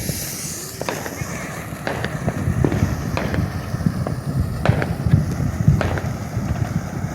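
Fireworks going off: a dozen or so sharp bangs and pops at irregular intervals, over a steady low rumble.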